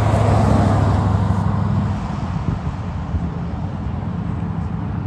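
A Porsche's engine running at a steady pitch, growing quieter about two seconds in.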